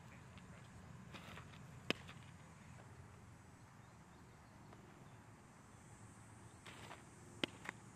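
Quiet outdoor ambience broken by sharp pops of a baseball smacking into a leather glove: one about two seconds in and two close together near the end, just after a pitch is thrown.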